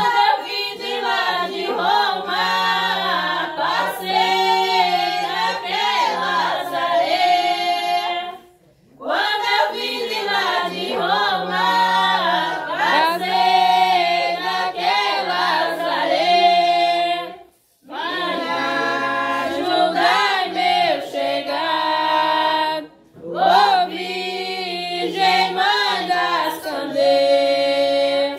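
A group of women singing a devotional bendito hymn to the Virgin together, unaccompanied, in long phrases with three brief breaks between them.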